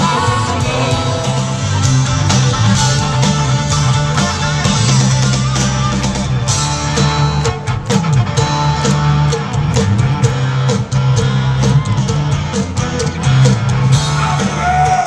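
Rock band playing live through a concert PA, heard from far back in the audience of an open-air show: a steady bass line under guitar, with a regular drum beat.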